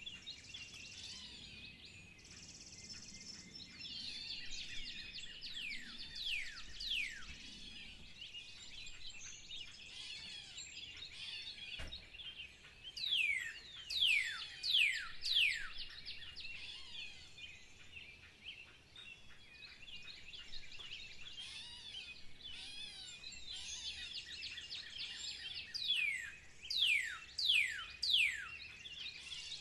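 Chorus of several songbirds chirping and singing together. Twice, one bird stands out with a run of four or five loud, sharply falling whistled notes.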